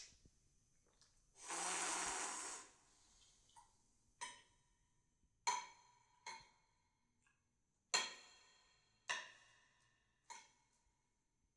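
A brief rush of noise, then a series of sharp taps or knocks at irregular intervals about a second apart, each ringing briefly.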